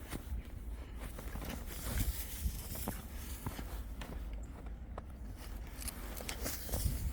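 Footsteps on a walk: irregular scuffing steps and small taps over a steady low rumble.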